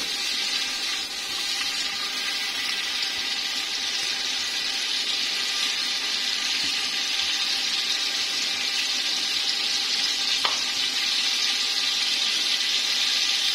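Onions frying in hot oil in a cooking pot: a steady sizzle.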